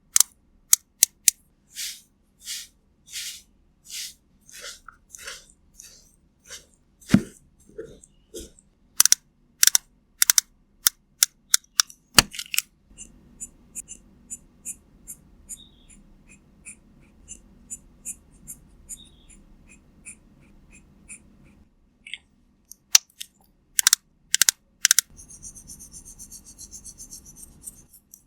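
Close-up ASMR makeup sound effects: sharp clicks and taps, a run of soft, evenly spaced strokes about one and a half a second, then a long stretch of faint, quick light ticks and a brief high hiss near the end.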